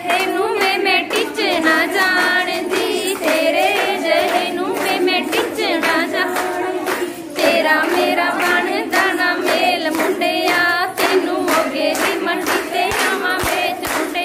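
A group of women singing a Punjabi folk song together, with steady rhythmic hand clapping about two to three claps a second.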